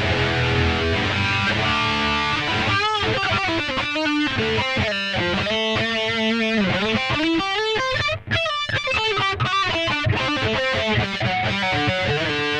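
Electric guitar played through a Mooer GE100 multi-effects pedal on its 'Modern Metal' distortion preset: heavy distorted chords for the first couple of seconds, then a single-note lead line with string bends and vibrato, broken briefly about eight seconds in.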